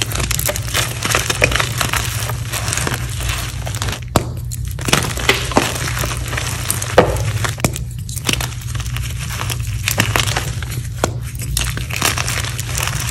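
Reformed gym chalk crushed and crumbled between bare hands: a dense run of dry crunching and crackling with sharp little snaps, easing off briefly twice.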